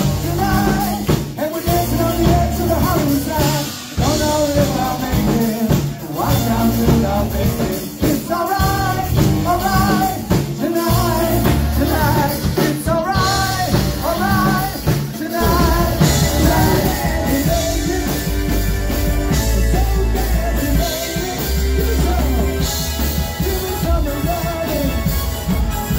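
Live rock band playing: electric guitars, a steady beat and a lead singer. The singing stops about halfway through and the band plays on with a heavier bass.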